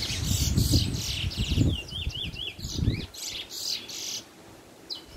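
Young male chestnut-bellied seed finch (the Trinidad 'bullfinch') in first black plumage, caged and singing: quick high-pitched twittering phrases and trills with rapid falling notes, as a bird just coming into song. It stops about four seconds in, and one short note follows near the end. A low rumble runs under the first three seconds.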